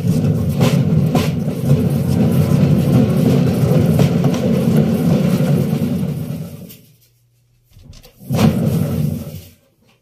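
Electrolux front-loading washing machine drum turning, belt-driven by the motor and heard through the open back: a loud rumble for about six and a half seconds that dies away, then after a brief pause a shorter burst before it stops.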